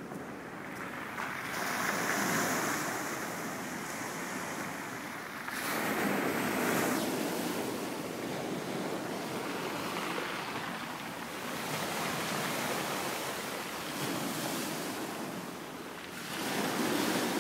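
Sea waves breaking onto a pebble beach and washing back, swelling louder every few seconds.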